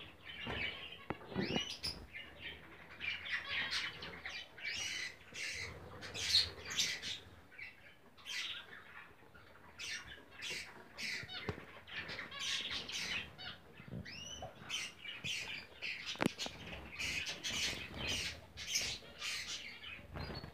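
Zebra finches calling: a rapid, continuous run of short calls from several birds in the cage.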